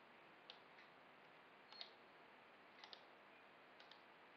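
Near silence with a few faint, sparse clicks from a computer keyboard and mouse over low room hiss.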